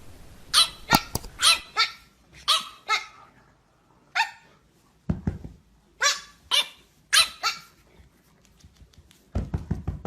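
A dog barking, a dozen or so short sharp barks at irregular intervals. Near the end they give way to a rapid run of lower, rougher pulses.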